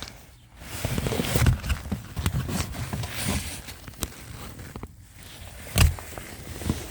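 Hands rummaging around a car's interior trim: irregular rustling with many small clicks and knocks, and one louder thump near the end.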